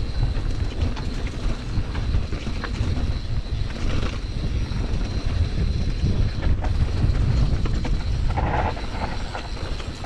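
Mountain bike riding down rough singletrack: wind rumbling on the camera microphone, with tyres rolling over dirt and stones and the bike rattling.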